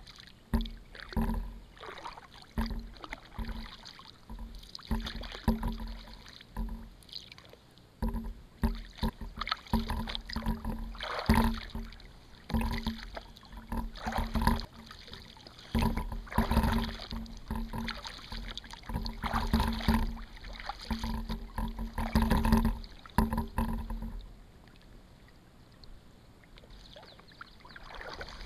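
Paddle strokes from an Advanced Elements AdvancedFrame inflatable kayak: rhythmic splashes and drips with light knocks, about one stroke a second. The strokes stop about four seconds before the end, leaving the kayak gliding quietly.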